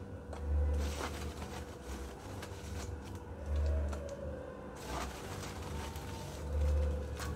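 A woven sack rustling as lumps of charcoal are pulled out by hand, with a few sharp clicks as pieces drop into a steel wheel-rim grill. Three dull low rumbles come about every three seconds.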